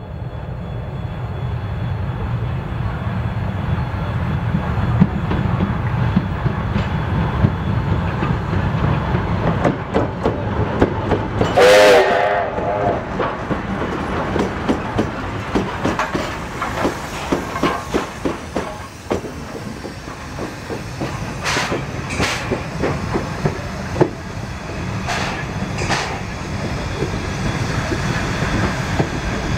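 Soviet LV-class steam locomotive approaching and passing close by: a low rumble that builds, then one short, very loud whistle blast about twelve seconds in. After that comes the clatter of its wheels and running gear over the rail joints, with sharp knocks.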